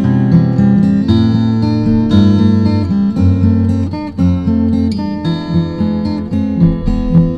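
Instrumental acoustic guitar music: a steady run of plucked notes over lower held notes.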